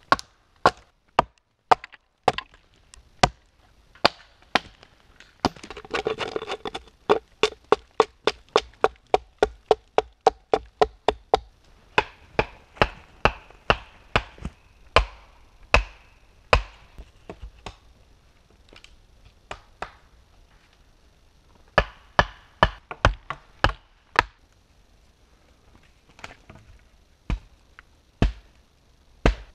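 Hatchet blows on wooden posts: sharp chops and knocks. A few seconds in comes a fast even run of about four ringing blows a second, then the strikes come scattered and fewer toward the end.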